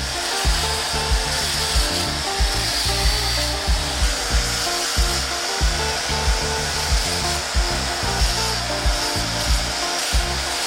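Background music with a steady beat, over the continuous rasping hiss of a power tool running steadily.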